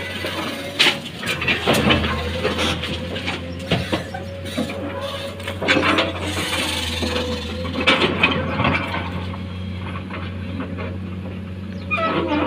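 Komatsu crawler excavator working: a steady diesel engine hum, with irregular knocks, clanks and rattling of soil and stones from the bucket through the first two thirds. Near the end a louder scraping as the bucket digs into the bank.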